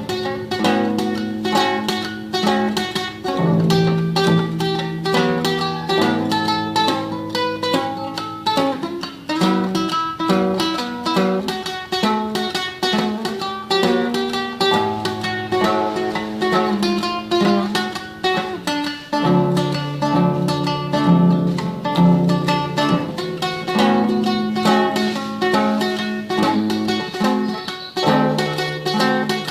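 Solo classical guitar playing tremolo: a melody of rapidly repeated plucked notes over a line of plucked bass notes.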